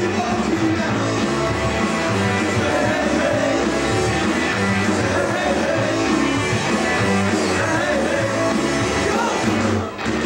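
Live rock band playing a beat-style song: electric guitar, bass and drums with a sung lead vocal. The full band sound drops briefly near the end.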